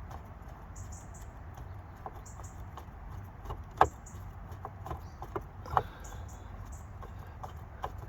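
Scattered clicks and light knocks of hands handling plastic parts and pushing wiring connectors onto a speaker, with two sharper clicks around the middle.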